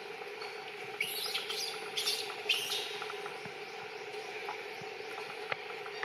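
A run of short, high chirps and squeaks between about one and three seconds in, over a steady background drone.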